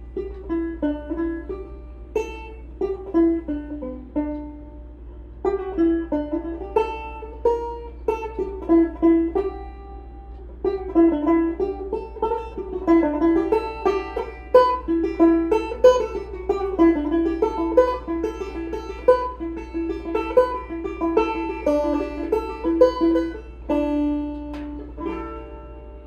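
Instrumental music without singing: a plucked string instrument picks a melody of short notes, with brief breaks about five and eleven seconds in and longer held notes near the end.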